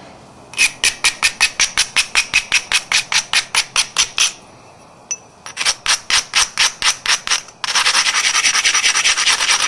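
An abrader stone rubbed back and forth along the edge of a coral biface in quick strokes, about six a second, grinding the edge to set up platforms for the next flakes. The strokes pause about four seconds in, start again, and near the end turn into a dense, continuous scraping.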